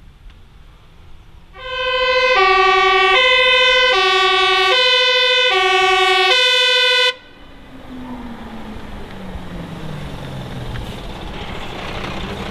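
Fire engine's two-tone siren alternating evenly between a high and a low note, each held a little under a second. It cuts off abruptly about seven seconds in, leaving the truck's engine, which falls in pitch as the truck slows and grows louder as it comes close.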